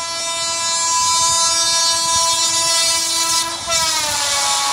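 Vande Bharat Express sounding one long, steady horn blast as it runs through at speed. About three and a half seconds in the horn drops in pitch as the train passes, and the rush of the train going by rises.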